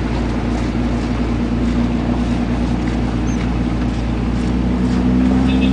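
Off-road 4x4's engine running at low speed, heard from inside the cab, steady, then rising slightly in pitch and loudness near the end.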